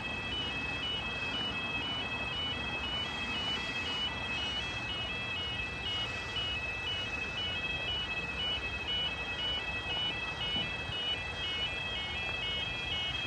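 Level crossing warning alarm sounding continuously: a high-pitched two-tone warble that alternates rapidly and evenly between its two notes, warning that a train is approaching.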